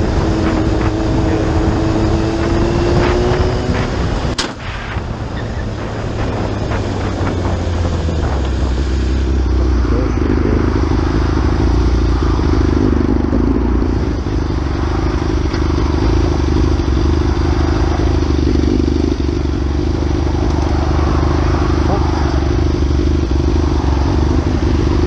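Sport motorcycle engine running at steady, moderate revs with wind noise, the engine note rising slightly in the first few seconds. A single sharp knock about four seconds in.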